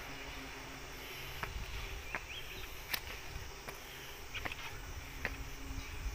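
Footsteps climbing concrete steps, a short scuff about every three-quarters of a second, over a steady high buzzing of insects.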